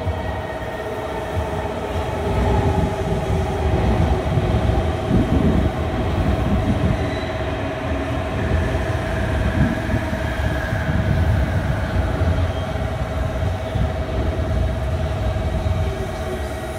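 JR Kyushu 813-series electric multiple-unit train approaching the platform: a rough, steady rumble of wheels on the rails that grows louder about two seconds in, with a steady single tone held over it.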